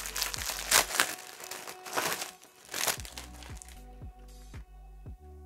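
Plastic packaging crinkling and rustling in the hands as a bag is opened and a buff is pulled out, loudest in the first three seconds, then stops. Background music with a steady beat runs underneath.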